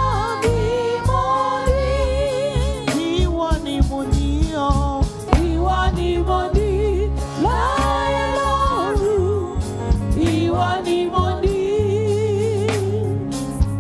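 Gospel praise-and-worship singing: voices with wavering, sustained sung notes over a full musical accompaniment with a steady beat.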